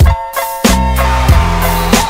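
Background music with heavy bass and drums: the beat drops out briefly near the start and the deep bass comes back in under a second in.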